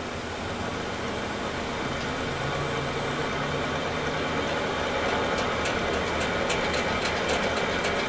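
VFD-driven wood lathe spinning a square wood blank up to speed. The motor and the whirling blank run steadily and grow gradually louder, without the VFD whine now that the carrier frequency is set to 16. A faint thin high tone stops about three seconds in, and light ticks come in the second half.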